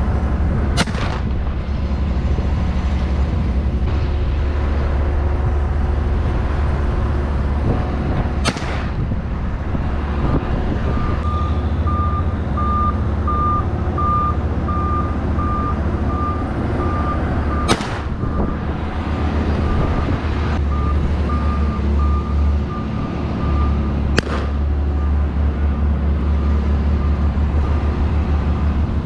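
Four 28-gauge shotgun shots, spaced several seconds apart, fired at passing doves. Under them runs a steady low rumble, and from about a third of the way in a vehicle's reversing alarm beeps over and over.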